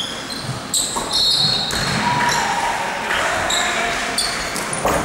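Basketball play on an indoor court: the ball bouncing, with many short, high-pitched squeaks of sneakers on the floor.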